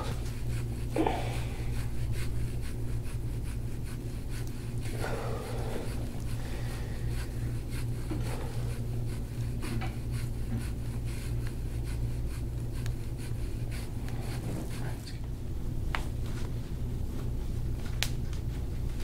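Gua sha scraping tool rubbing along the skin of a calf in repeated strokes, faint over a steady low hum, with a couple of short clicks near the end.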